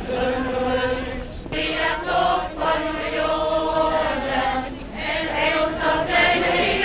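A large crowd singing a song together, many voices holding long notes, heard through a 1930s newsreel soundtrack.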